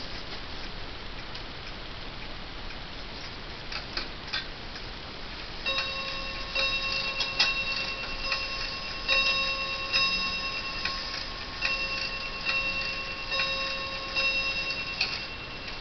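Montgomery Ward schoolhouse chime clock ticking. A couple of sharp clicks come about four seconds in. From about six seconds it plays a chime tune of about a dozen ringing notes, one every second or so, which ends shortly before the close.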